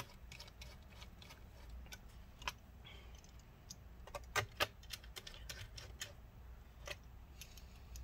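Small screws being put back into the laptop's drive bay with a screwdriver: a faint, irregular series of small metallic clicks and ticks, with two sharper clicks about four and a half seconds in.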